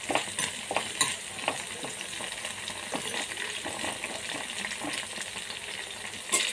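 Green chillies, coriander seeds and cumin sizzling in hot oil in a pan, with a spatula scraping and clicking against the pan as they are stirred. One sharper knock comes near the end.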